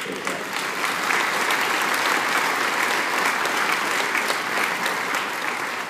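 Seated audience applauding: a dense, steady clatter of many hands clapping that eases off near the end.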